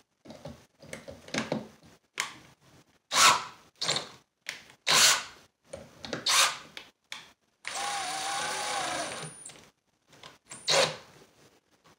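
DeWalt cordless drill run in a series of short trigger pulls, each spinning up and winding down, then one steady run of about two seconds about two-thirds of the way in, backing out a bolt.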